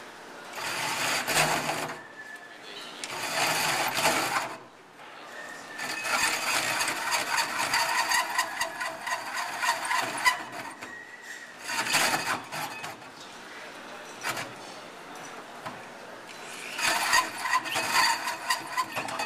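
A cordless drill drives a hole saw into sheet steel in a run of bursts, the longest about five seconds, with the teeth grinding in the cut groove. There are short pauses between the bursts.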